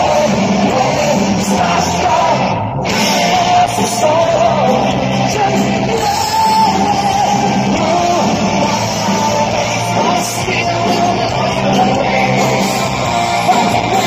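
Power metal band playing live and loud: electric guitar, drums and keyboards, with a lead singer singing over them in a large hall.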